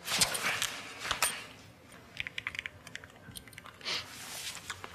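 Mobile phone keys being pressed to dial a number: a quick run of about eight light clicks a little over two seconds in, after a few handling knocks.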